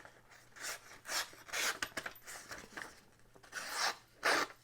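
A Damned Designs Oni folding knife's blade making a series of short cutting strokes through a material, each a brief scraping sound, about two a second and unevenly spaced.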